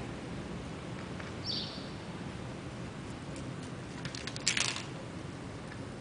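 Dutch rabbit pulling at and biting a hanging lettuce leaf: one crisp burst of leaf rustling and tearing about four and a half seconds in, with a few light clicks around it. A steady low hum runs underneath.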